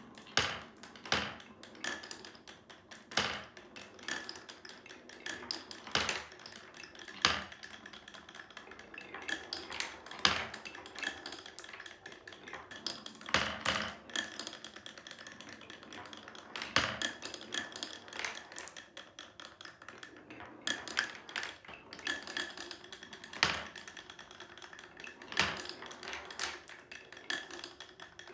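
Glass marbles rolling through a wooden marble run: a steady rolling rumble with frequent, irregular sharp clacks and knocks as the marbles bounce through the wavy dips of the track and drop from block to block.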